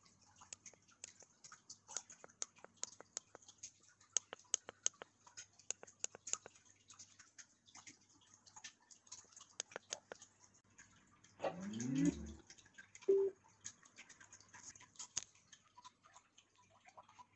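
Clicks of the Valco Nordell Mk3 Bluetooth speaker's buttons being pressed, then the speaker plays its power-on jingle about eleven seconds in: a short rising run of tones, followed by a single short beep about a second later.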